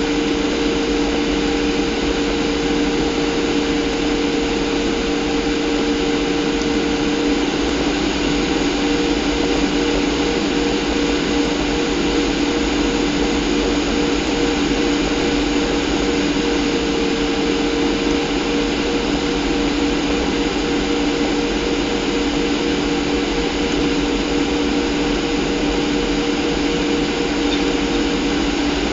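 Steady cabin drone of a Boeing 737's CFM56 turbofan engines heard from a window seat over the wing, with two steady engine hums under a hiss of airflow, the engines holding an even thrust on approach.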